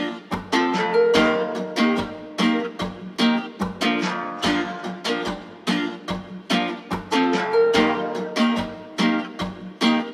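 Background music: a light, bouncy melody on plucked strings, a note every fraction of a second, fading out at the very end.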